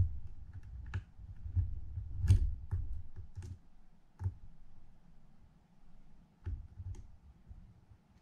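Irregular small metallic clicks and taps as a screw is turned in by hand on the side plate of a Penn International II 50T fishing reel, over a low rumble of handling. The clicks are densest in the first few seconds, with the sharpest about two seconds in, and thin out after that.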